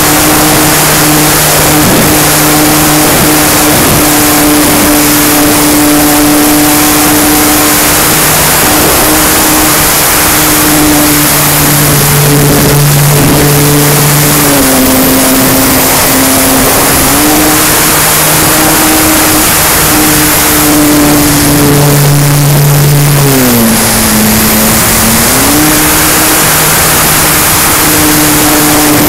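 Onboard sound of an electric RC plane in flight: the E-flite Power 160 brushless motor and propeller whine steadily under loud rushing air on the camera. The whine drops in pitch twice, about halfway through and again near the end, then climbs back.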